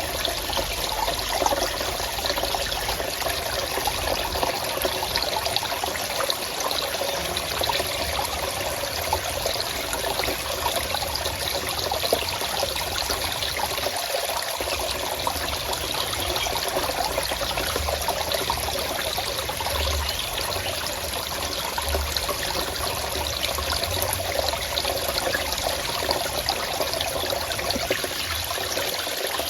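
Forest stream trickling and babbling steadily over stones, a continuous water sound with no pauses.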